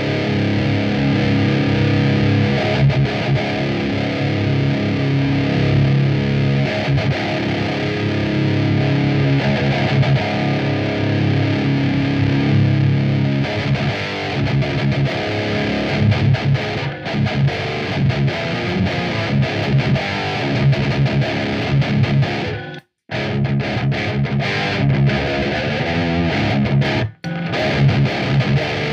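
Heavily distorted electric guitar playing, dense and sustained. It cuts out abruptly twice near the end.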